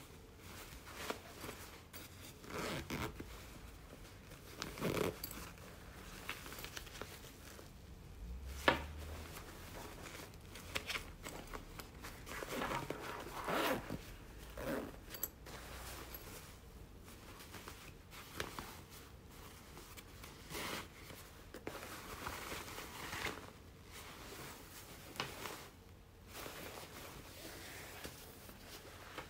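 Quilted nylon bags handled at close range: the fabric rustles and zippers are pulled open and shut in short, irregular strokes, with one sharp click about a third of the way through.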